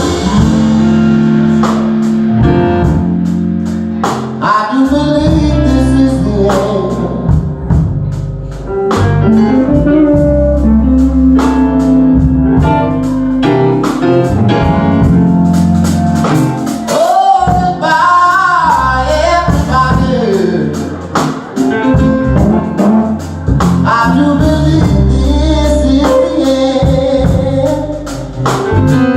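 Live band playing a song, with a voice singing over guitar, bass and drums keeping a steady beat.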